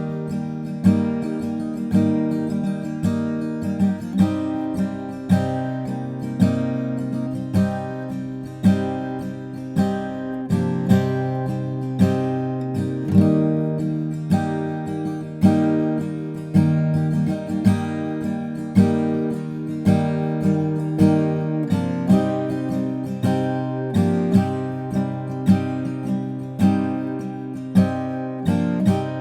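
Guild JF-30 jumbo flattop acoustic guitar being strummed and fingerpicked, a steady run of ringing chords with a new stroke about every second.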